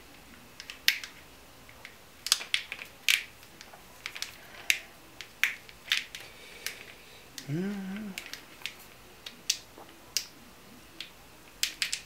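Scattered small plastic clicks and ticks of hands working a wire into a wiring-harness connector and its plastic loom, with a brief hummed 'hmm' from the worker about two-thirds of the way through.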